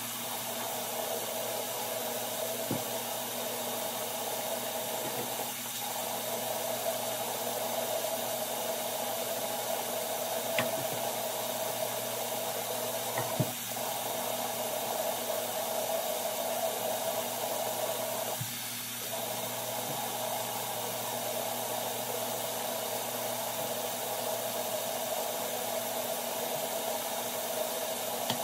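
A small motor's steady whirring hum, with a few faint taps.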